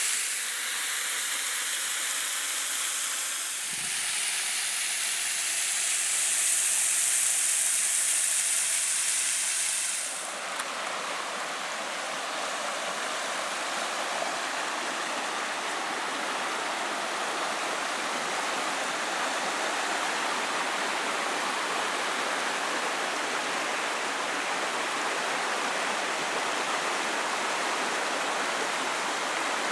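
Rushing water, a steady hiss that changes about ten seconds in to a fuller, deeper rush.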